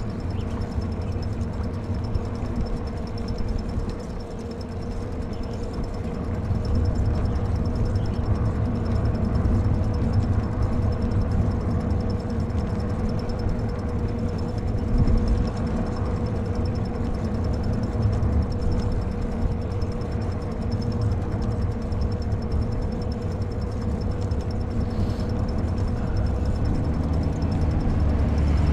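Wind rumbling on the microphone of a camera riding along on a moving electric bike, with a steady faint whine underneath. Near the end, a car coming up from behind begins to be heard over it.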